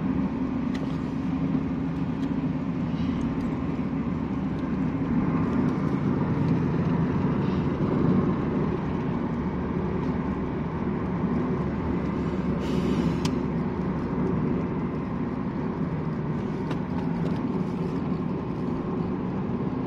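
Steady engine and tyre noise of a car driving at road speed, heard inside its cabin, with a short hiss a little past the middle.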